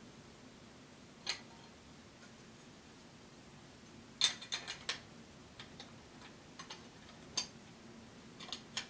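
Sharp clicks and light taps of Weatherby Mark V rifle parts being handled and fitted together during reassembly: a single click about a second in, a quick cluster of clicks around four seconds in, another at about seven seconds, and a couple more near the end.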